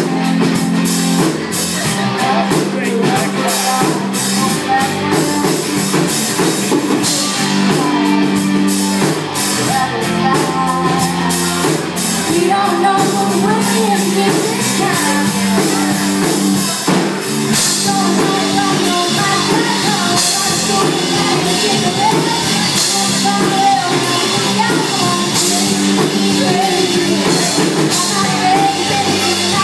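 Live rock band playing: a woman sings lead over electric guitars and a drum kit, with cymbals crashing often.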